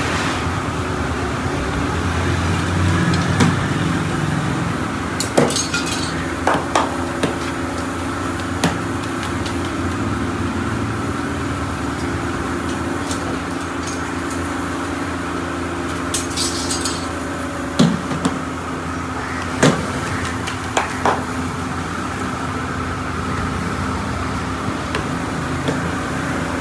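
Naan being made at a tandoor: scattered sharp knocks and metallic clinks from dough handling and the baker's metal tandoor rods, with two brief rattles, over a steady background hum.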